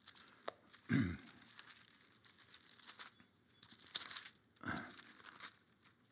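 Bible pages being turned, a series of separate paper rustles with a couple of soft thumps.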